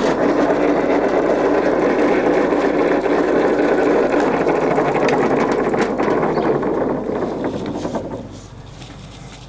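Wilson three-phase lathe's geared headstock switched straight on, direct on line with the clutch disconnected, and running steadily in its 200 rpm range with a noisy gear whir. Near the end it winds down and stops.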